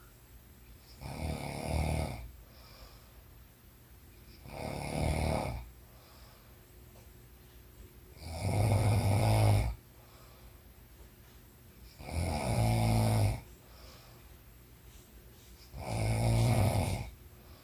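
A woman snoring in her sleep: five snores about four seconds apart, each lasting about a second, with quiet between them.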